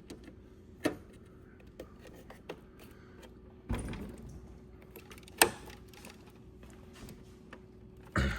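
Handling noise from computer parts: a few scattered clicks and knocks, a duller knock a little under four seconds in and a sharp click about five seconds in, over a faint steady hum.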